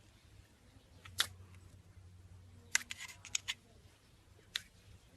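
Slime being handled, giving a few short, sharp crackling pops: one, then a quick cluster of several, then one more.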